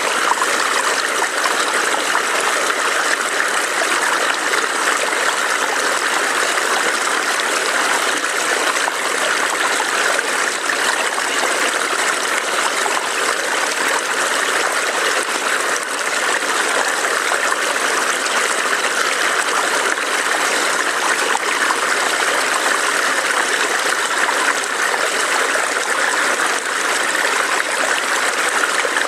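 A burbling forest stream: water running and trickling in a steady, even rush.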